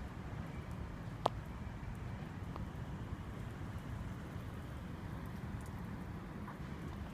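Steady rain falling, an even hiss with a low rumble beneath, and a single sharp tick about a second in.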